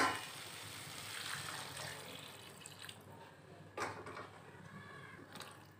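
Water poured into a hot kadai of frying vegetables and spice paste, a splashing, liquid noise that fades away over about two and a half seconds. A sharp clink comes at the very start and a knock about four seconds in.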